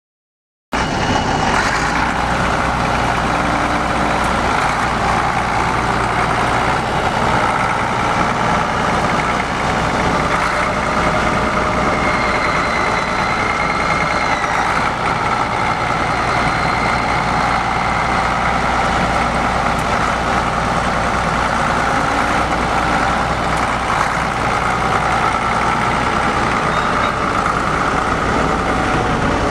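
1974 Case 1070 tractor's 7.4-litre six-cylinder diesel engine running at a steady speed as the tractor drives slowly. It starts abruptly just under a second in, and its level and pitch hardly change after that.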